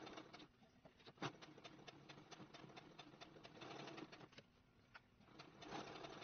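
Electric sewing machine stitching in short runs of rapid even clicks, stopping twice, with one sharper click about a second in. This is back-and-forth stitching at the end of a seam to strengthen it.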